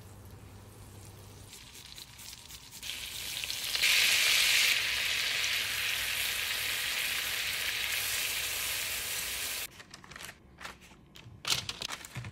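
Butter and minced garlic sizzling in a frying pan, stirred with a wooden spoon. The sizzle swells a few seconds in, holds steady, then stops abruptly, and a few light clicks and knocks follow near the end.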